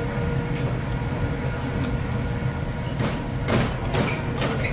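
Restaurant room noise: a steady low rumble and hum, with a few short clicks and clatters in the last second and a half.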